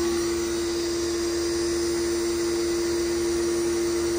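1800 PSI pressure washer running steadily with a constant hum, driving a sewer jetter's rotating nozzle through a grease-clogged kitchen drain line.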